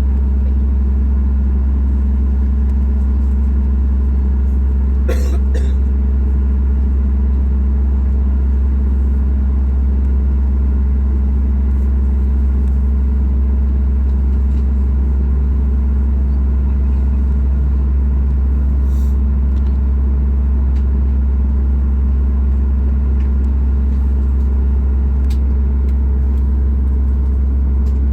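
Steady low drone and rumble inside the cabin of a Boeing 737 MAX 8 on the ground, from the aircraft's engines and air systems. A short sharp sound cuts through about five seconds in.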